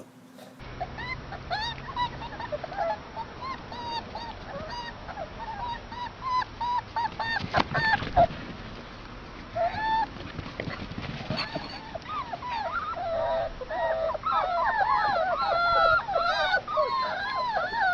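A litter of puppies whining and squealing, many short high cries overlapping, growing busier in the second half, with a few brief rustling noises around the middle.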